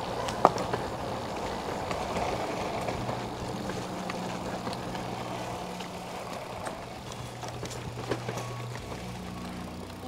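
Bicycle coasting fast downhill: a steady rush of tyre and riding noise with scattered clicks and rattles from the bike.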